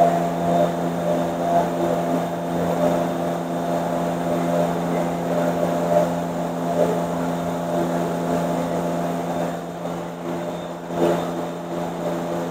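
A steady machine drone holding one pitch, with a low hum and several overtones above it.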